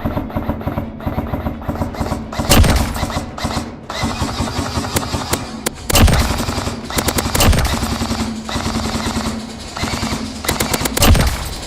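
Custom Classic Army M4 airsoft electric rifle with a binary trigger and SHS gearbox compression parts firing fast strings of shots, its gearbox cycling with each one, with a few louder cracks among them.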